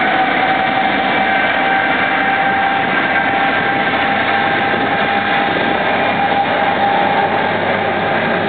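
A Boeing 747-8's GEnx turbofan engines at low taxi power: a steady high whine over a broad rushing rumble.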